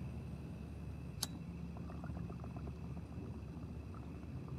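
A single sharp click about a second in, then faint, quick bubbling of water in a glass bong as it is drawn on.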